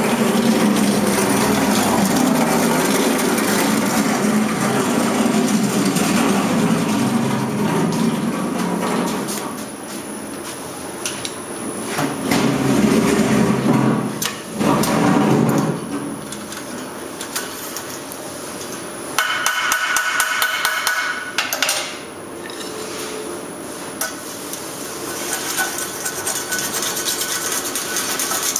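Sheet-metal press and stamping die at work: continuous machine noise packed with rapid metallic knocks and clatter. A brief high whine sounds about two-thirds of the way through.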